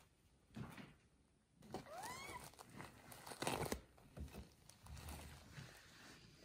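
A cat's single short mew, rising in pitch, about two seconds in. It is followed by a louder burst of rustling of bedding and fur as a hand reaches in to stroke the cat in the basket.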